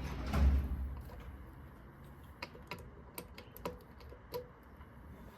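A dull thump about half a second in, then a handful of sharp, light metallic clicks and taps as small engine parts are handled and fitted by hand on a two-stroke minibike engine's clutch side.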